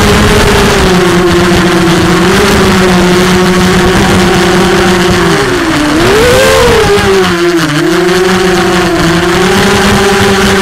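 Racing quadcopter's Cobra 1960KV brushless motors and DAL propellers whining steadily in flight. The pitch dips, swoops sharply up about six seconds in, dips again and then settles back to a steady whine.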